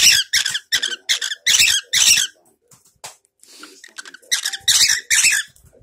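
Cockatiel calling close to the microphone: two runs of short, harsh, high chirps and squawks, with a quieter pause in the middle.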